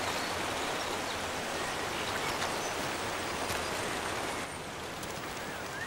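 Small waterfall splashing into a foaming pool: a steady rush of falling water that eases slightly about four and a half seconds in.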